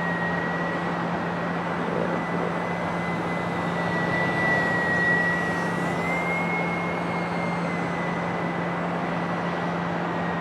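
Electric motor and propeller of a UMX Click micro RC airplane whining at a steady high pitch. The whine wavers with throttle and rises a little about six seconds in, over a steady rushing noise.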